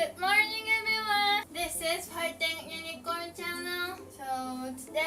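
A high, childlike voice singing a few long held notes in short phrases.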